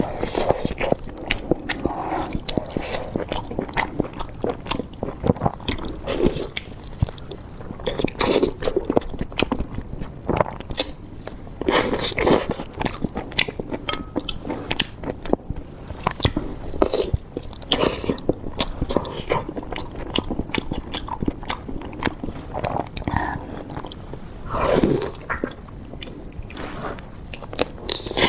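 A person biting and chewing soft, sauce-soaked blood sausage, with a dense, irregular run of wet mouth smacks and clicks.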